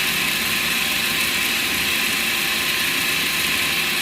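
Electric blender motor running steadily, blending eggs and sugar.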